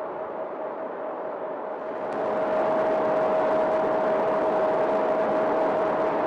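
Steady mechanical whir with a constant hum-like tone running through it, getting louder about two seconds in and then holding steady.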